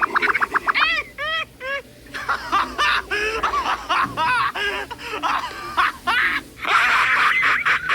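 A string of high-pitched, cartoon-style laugh sound effects: fast, rapidly repeated laughing syllables and squeaky rising and falling cackles, one laugh after another. A denser, noisier laugh comes near the end.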